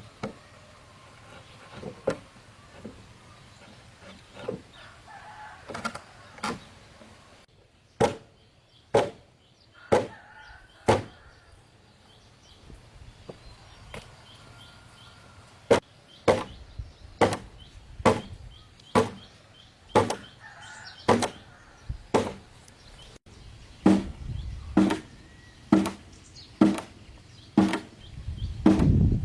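Repeated sharp chopping strikes. They come soft and uneven at first, then strong and about a second apart, and over the second half they run faster and steadier, close to two a second.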